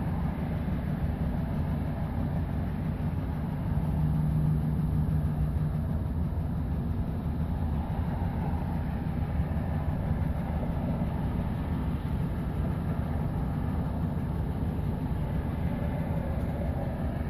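2011 Chevrolet Silverado's 5.3-litre V8 idling rough and unevenly, as if it wants to stall. It runs a little louder for a couple of seconds about four seconds in.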